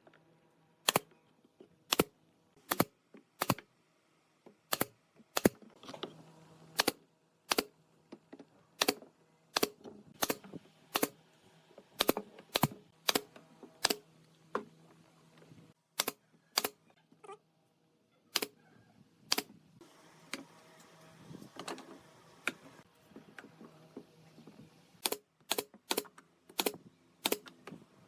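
A run of sharp, light knocks on wood from hand-tool work, one or two a second at an uneven pace with a few short pauses.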